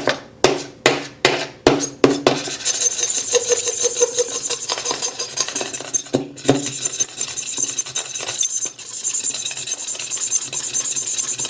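Steel knife blade striking an iPhone 7's anodized aluminum body several times in quick sharp taps, then scraping rapidly and continuously across the metal, with a couple of brief pauses.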